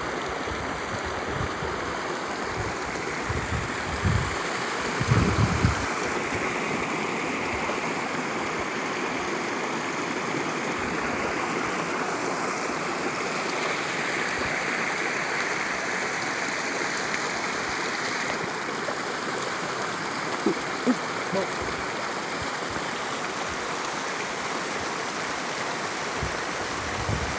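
Water from a mountain spring running steadily. A few short low thumps come around five seconds in and again around twenty seconds in.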